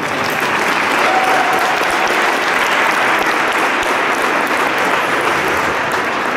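Audience applauding steadily for a figure skater, starting as her music stops.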